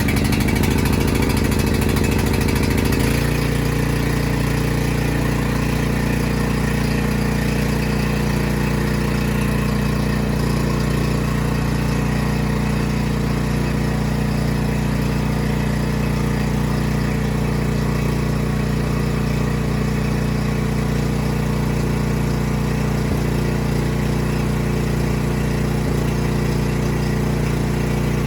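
Portable generator's small gasoline engine starting up, running unevenly at first and then settling into a steady hum about three seconds in.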